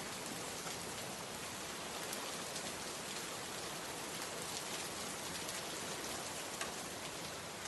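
Steady rain falling, with many small drops pattering and ticking on a surface.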